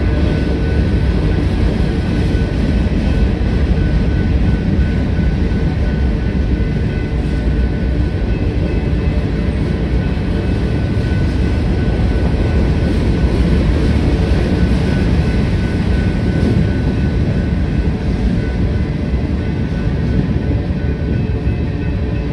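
Freight train of covered hopper cars rolling past at a grade crossing, its wheels giving a steady loud rumble on the rails.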